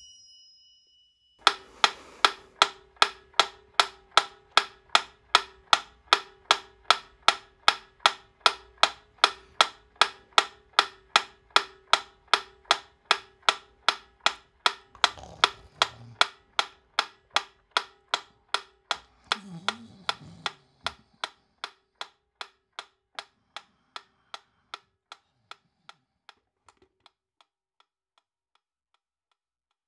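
Clockwork pendulum metronome ticking steadily, about three ticks a second, its escapement clicking on each swing. The ticks grow gradually fainter over the last several seconds and die away.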